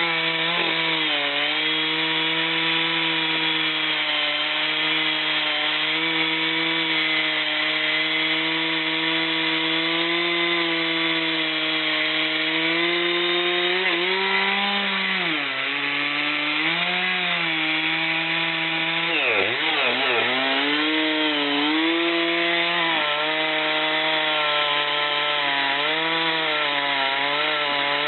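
Two-stroke chainsaw running at full throttle as it cuts through wood. Its engine pitch sags under load and recovers several times, most deeply about two-thirds of the way in.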